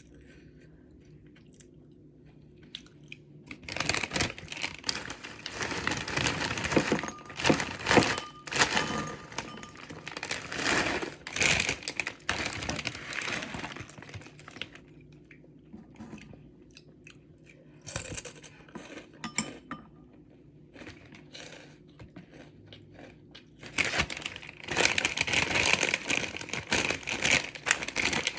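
Close-miked chewing of Samyang carbonara instant noodles, coming in bursts with short quiet gaps between them; the first few seconds are quiet.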